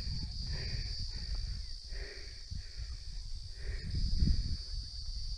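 Outdoor forest ambience: a steady high insect drone over a low rumble on the microphone, with a few faint soft sounds coming and going.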